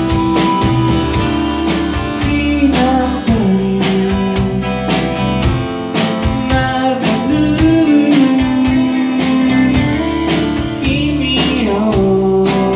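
Live rock band playing loud: guitars over a steady drum beat, with a singing voice.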